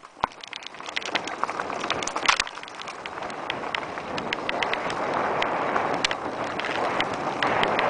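Mountain bike rattling and clicking as it rides fast down a rocky trail, with wind rushing over the microphone that grows louder from about halfway through.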